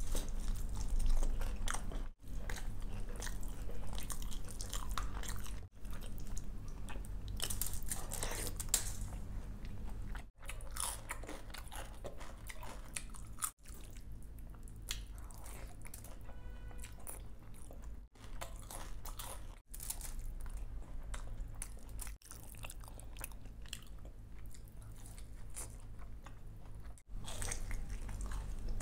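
Close-miked eating: crunchy bites into fried pakoras and wet chewing, over a low steady hum. The sound drops out briefly about eight times where short eating clips are joined.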